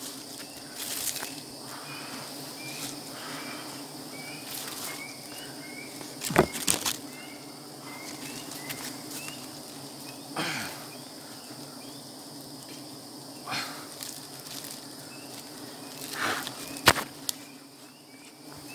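Branches knocking and leaves rustling as a man climbs a tree and grips its limbs, with several sharp knocks, the loudest about six seconds in and again near the end. Under them is a steady hum of honeybees around their open comb, with short high chirps repeating about every half second.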